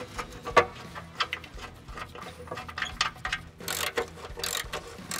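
Hand ratchet wrench clicking in short runs as the skid plate bolts are driven in, with a few sharp metal knocks; the loudest comes about half a second in.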